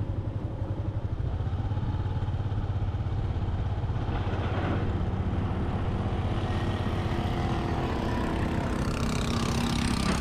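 Motorbike engine running steadily with a low throb while riding along a street.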